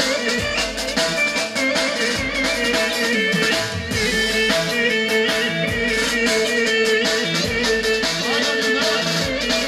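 Loud upbeat Romani dance music: an ornamented melodic lead over a steady drum beat.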